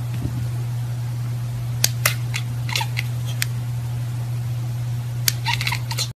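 Button of a handheld laser pointer clicking, singly and in short quick runs, over a steady low hum.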